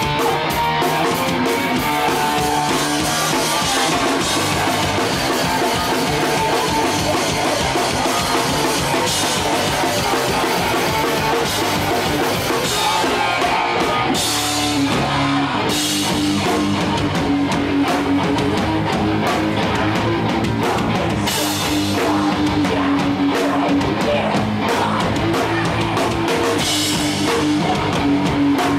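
Hardcore punk band playing live at full volume: electric guitars and a pounding drum kit, loud and continuous.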